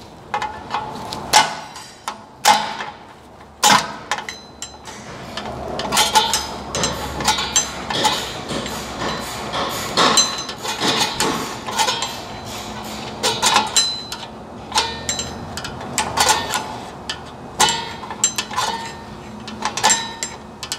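Flat screwdriver working the star-wheel adjuster of a drum-in-hat parking brake shoe to back it off: irregular metallic clicks, knocks and scrapes, some with a short ring.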